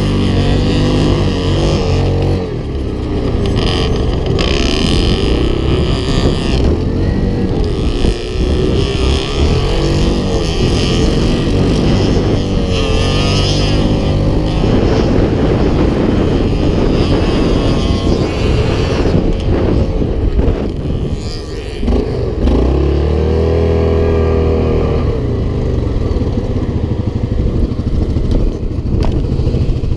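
Yamaha Grizzly 700 quad's single-cylinder four-stroke engine heard from on board, its note rising and falling with the throttle while riding on sand, with a short dip about two-thirds of the way through and then a rev back up. Wind rushes over the microphone.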